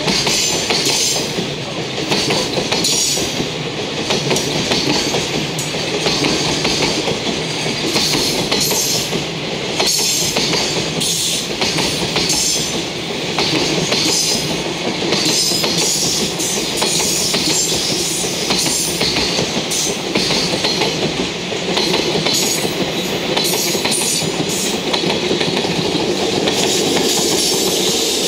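Container freight train's wagons rolling past, loud and steady, steel wheels clacking over the rail joints.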